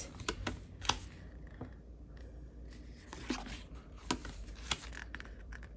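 Paper sticker-book pages being handled and turned: scattered light rustles and soft taps, a few near the start and more in the second half, over a faint low hum.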